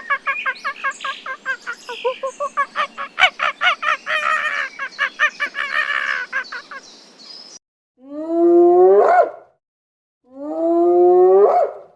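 Animal calls: a rapid run of short, high chattering chirps, several per second, for about seven seconds, then it cuts off and two long drawn-out calls follow, each rising in pitch toward its end.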